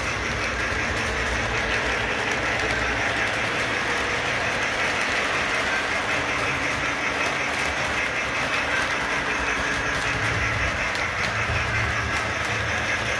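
Model train running on the layout's track: a steady rolling whir of the motor and wheels, with light clicking as the wheels pass over the rail joints.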